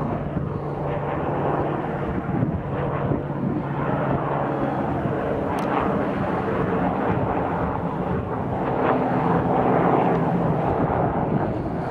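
A light biplane's piston engine and propeller running steadily as it comes in low to land.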